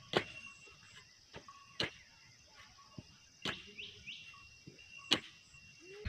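A kudal hoe striking soil in four regular strokes, roughly one every second and a half, while hoeing a field; insects chirp faintly and steadily behind.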